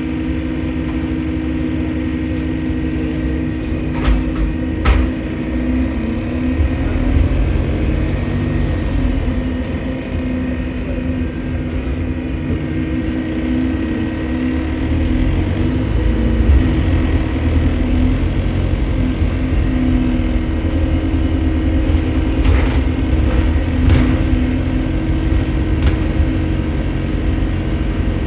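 Inside a Stagecoach London double-decker bus on the move: steady engine and running noise. A faint high whistle rises and falls about halfway through, the kind of noise the uploader takes for a leaking turbo. A few short knocks come near the start and again near the end.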